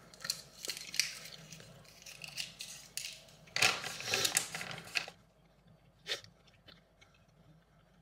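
Crinkling and tearing of a calcium soft chew's wrapper, mixed with chewing, in bursts for about five seconds; then it goes quiet apart from one click about six seconds in.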